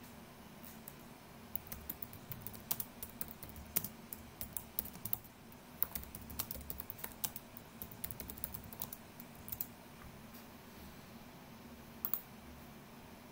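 Quick, irregular light clicks and taps, bunched from about two to ten seconds in with a couple more near the end, over a faint steady hum.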